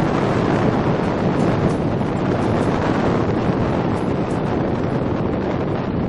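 Typhoon wind and rain: a loud, steady rushing noise of strong wind with rain.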